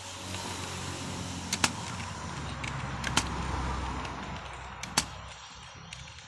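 A passing vehicle's rumble and hiss swelling to a peak about midway and then fading, with three isolated sharp clicks.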